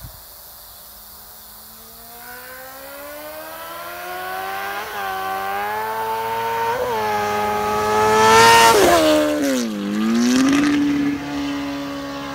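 2012 Honda CBR1000RR's inline-four engine, through a new exhaust, accelerating hard toward the listener in a rising note that hitches twice on the way up. It is loudest as the bike flies past, then the pitch drops and settles into a steady note as it rides away.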